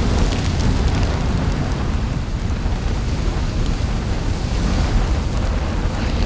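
Volcanic-eruption sound effect laid over the footage: a low, steady rumble with light crackling ticks over it.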